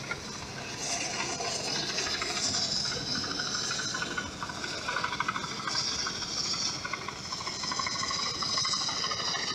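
New Holland 8060 combine harvester on crawler tracks passing along a road. Its engine runs under a steady hiss, with a fast rattle from the running gear.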